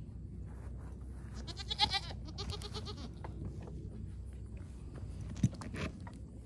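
A goat bleating once with a wavering call about one and a half seconds in, followed by a few sharp knocks, the loudest about five and a half seconds in.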